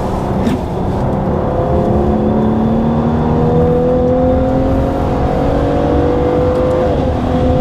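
2014 Cadillac CTS's twin-turbo V6 pulling hard out of a corner, heard from inside the cabin. Its pitch climbs slowly and steadily, with a brief dip about seven seconds in.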